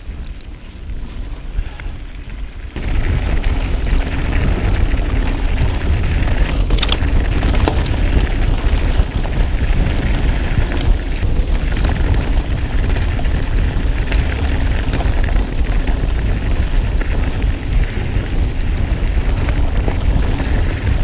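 Wind rushing over a GoPro's microphone as a mountain bike rides downhill: a loud, steady low rumble with a few scattered knocks and rattles from the bike. It grows louder about three seconds in.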